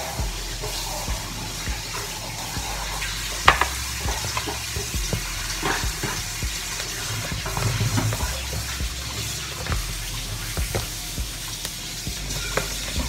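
Metal spoon scraping and clicking against a plastic bowl as flour and water are stirred into a dough, with one sharp knock about three and a half seconds in.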